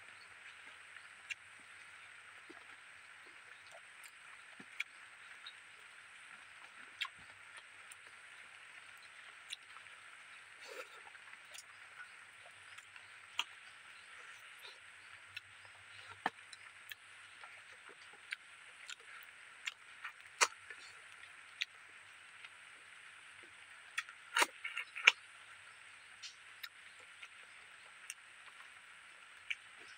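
Eating sounds: chewing and lip-smacking as rice and fish are eaten by hand, heard as scattered short wet clicks over a steady high background hiss, with a brief louder run of smacks near the end.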